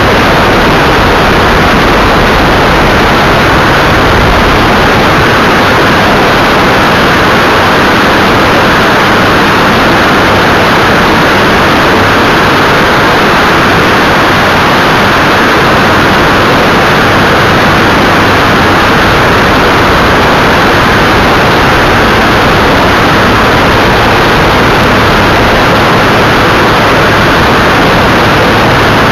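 Evektor EV-97 Eurostar ultralight climbing out after takeoff: the engine and propeller drone steadily under loud, even rushing airflow noise on the tail-mounted camera's microphone.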